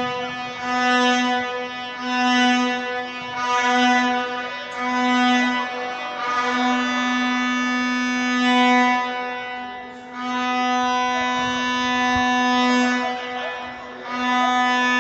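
Vuvuzela-style plastic horn blown on one steady note, first in short blasts about every second and a half, then held in two long blasts of a few seconds each.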